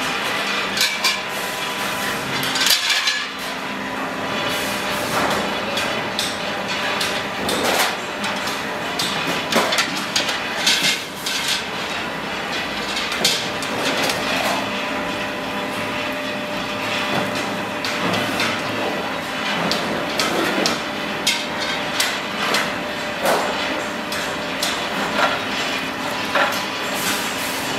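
Metal-workshop noise: irregular metallic clanks and knocks over a steady machine hum, with water sloshing.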